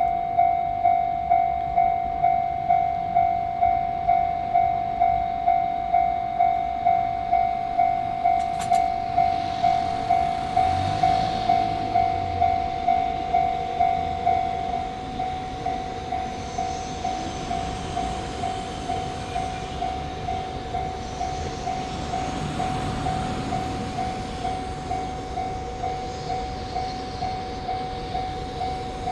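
Japanese railway level-crossing warning bell ringing steadily at about two strokes a second; the bell drops in loudness about halfway through. Underneath it an electric train runs past over the crossing.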